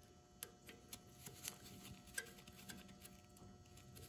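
Faint, irregular light clicks of an Allen key turning an Allen-head screw into the re-tapped 1/4-20 hole of a Fairbanks Morse magneto housing.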